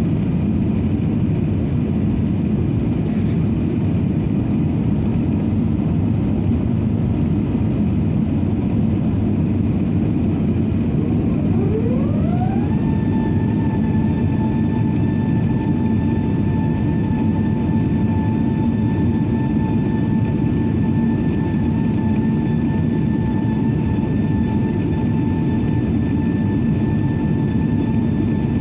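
Airbus A380-800 cabin noise heard from inside the cabin: a steady deep roar of the jet engines and airflow. About a third of the way in, a whine rises in pitch for about a second, then holds a steady tone.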